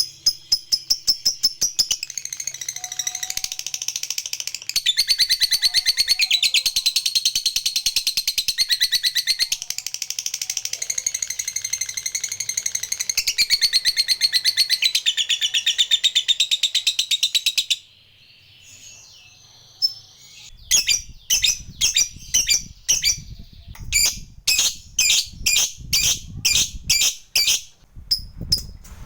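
Lovebird giving its long, rapid chattering trill ('ngekek panjang'), which runs unbroken for about eighteen seconds. The trill stops, and after a short pause the bird gives a run of separate sharp chirps, two or three a second.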